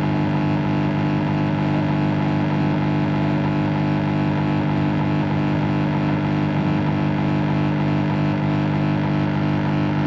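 Steady electrical buzz with many overtones, unchanging throughout.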